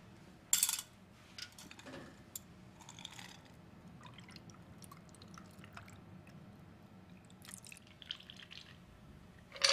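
A stirred Negroni being strained over ice into a glass: liquid trickling and dripping, with a sharp clink of ice against glass about half a second in and a few lighter clinks after.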